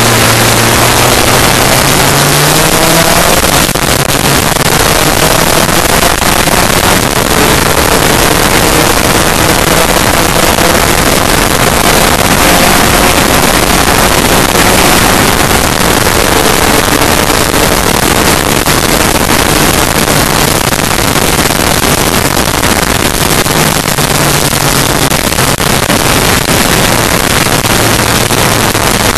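Onboard sound of a Lambretta race scooter's two-stroke engine at racing revs, its pitch rising and falling repeatedly as it accelerates and backs off through the corners, under heavy wind rush on the microphone.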